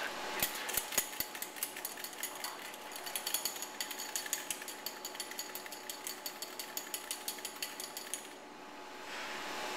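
Zahm-Nagel SS-60 stainless carbonation tester being shaken hard by hand, its metal parts rattling and clattering in a fast, uneven rhythm. The beer is shaken to release its CO2 so that the tester's gauge gives the pressure and temperature reading for the carbonation check. The shaking stops about eight seconds in.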